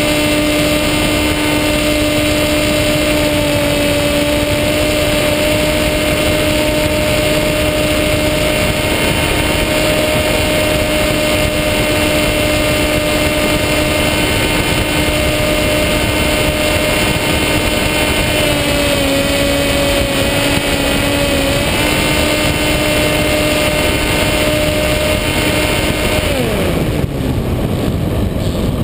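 Electric motor and propeller of a Skywalker FPV plane, recorded from the onboard camera, giving a steady whine at cruise throttle over heavy wind rush. A little after three-quarters of the way through, the throttle is cut and the pitch falls sharply as the propeller spins down, leaving mostly wind.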